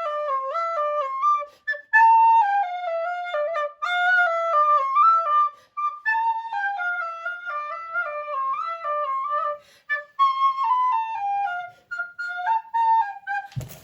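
Background music: a solo flute-like woodwind melody of quick stepped notes, broken by a few short pauses.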